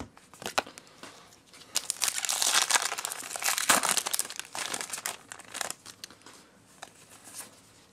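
Foil wrapper of a Pokémon booster pack crinkling and rustling for a few seconds as it is handled and the cards are pulled out. A few light clicks of cards being handled follow near the end.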